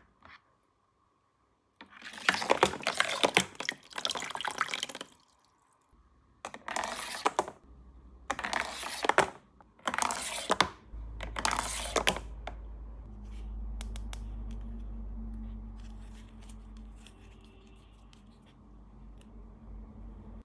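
Water pouring and splashing in about five bursts, the longest about three seconds. Then a steady low hum with faint trickling sets in.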